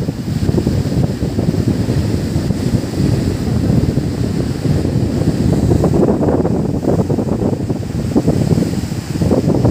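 Wind buffeting the microphone by the sea, with surf underneath: a loud, continuous, uneven low rumble.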